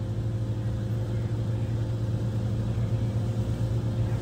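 Steady low hum of an idling motor vehicle engine, unchanging throughout.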